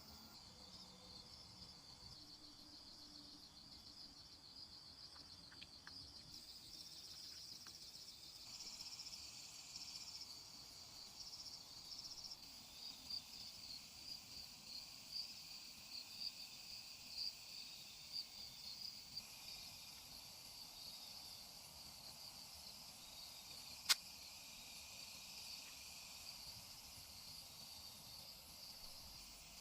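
Faint, steady chorus of insects chirping in a rapid pulsing trill, with one sharp click about three-quarters of the way through.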